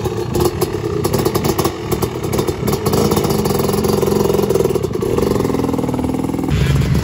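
Fantic motocross bike engine running and revving as the bike pulls away.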